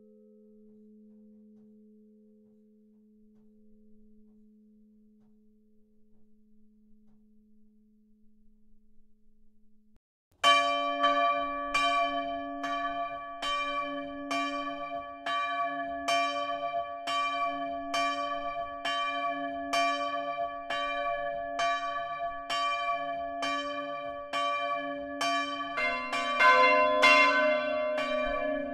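Church bells rung close up in the belfry. For about the first ten seconds only the faint hum of a bell dies away. Then a bell begins to swing and strike, about three strokes every two seconds, and a second bell of a different pitch joins in near the end.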